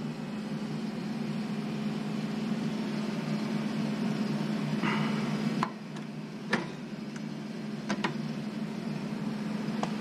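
50 A time-delay cartridge fuses being pressed into the spring clips of a rooftop unit's fused disconnect, with sharp clicks about six and a half and eight seconds in, over a steady low hum.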